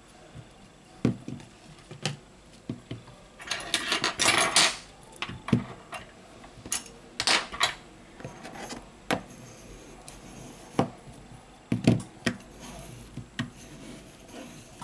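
Hands and a metal tool handling a pulled smartphone battery on a work mat: irregular small clicks and taps, with a longer scraping rustle about four seconds in.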